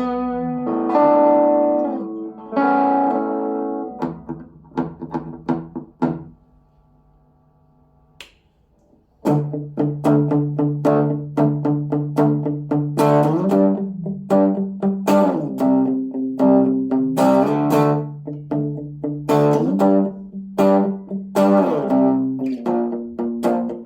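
Fabio ST100 Stratocaster-style electric guitar with three single-coil pickups, played through a Fabio G-10 small combo amplifier: ringing chords and picked notes. The playing stops for about three seconds around a quarter of the way in, then resumes with a quicker run of picked notes and chords.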